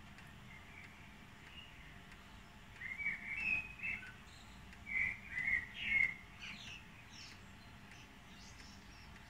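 Common blackbird singing: two warbled, fluting phrases about three and five seconds in, with fainter high twitters after them.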